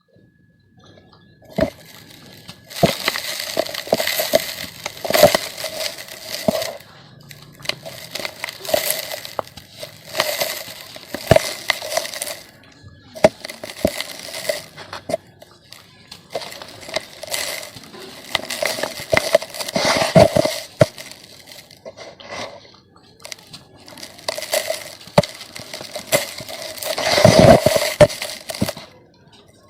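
Chunks of red dirt being crushed and crumbled in repeated bursts of gritty crunching and crackling, with sharp clicks of pieces snapping. Near the end comes a heavier crunch with a low thud.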